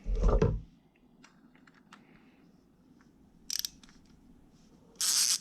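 A short thump, then small scattered clicks and taps of plastic and metal screwdriver parts being handled. Near the end a loud, rapid rattling clatter starts up.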